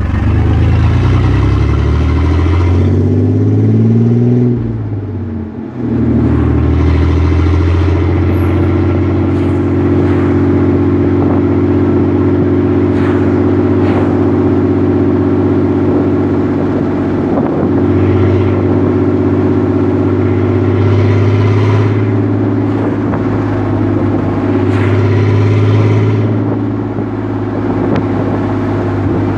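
Chevrolet Blazer's V6 engine pulling up through a gear, its note rising, then a brief drop at a gear change about five seconds in. After that it runs at a steady cruising speed, with small swells in the engine note.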